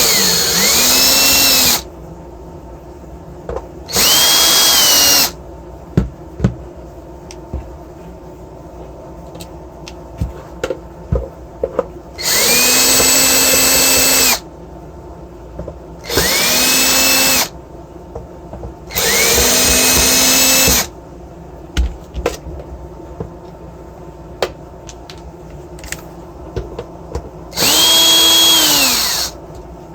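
Power drill-driver backing out case screws, run in six short bursts of one to two seconds, each whining up to speed and winding down as the trigger is released. Small clicks and knocks of handling come between the runs.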